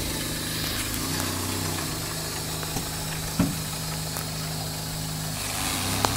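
Car engine running at a steady idle, with one short knock about halfway through.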